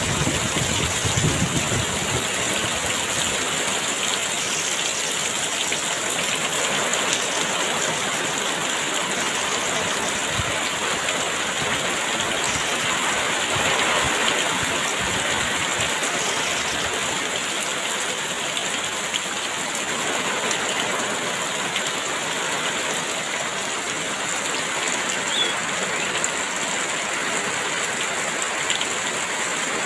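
Heavy rain pouring steadily, an even unbroken hiss of falling water.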